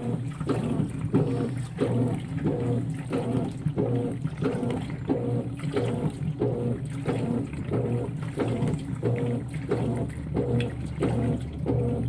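Top-loading washing machine agitating a load of towels in water. It gives a regular back-and-forth swish and slosh about twice a second over a steady low motor hum.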